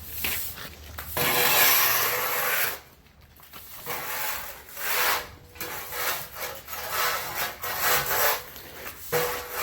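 Rough scraping strokes: one long stroke about a second in, then a run of shorter back-and-forth strokes.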